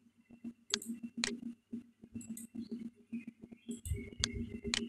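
Computer mouse clicks in two pairs about half a second apart, the first pair about a second in and the second near the end, over a faint low hum.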